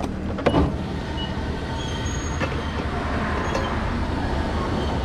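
Steady motor-vehicle rumble, with a short knock about half a second in.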